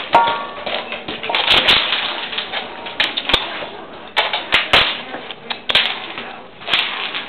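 Dogs scrambling over ice cubes on a tiled floor: irregular sharp clicks and cracks from claws on tile and ice being knocked about and crunched.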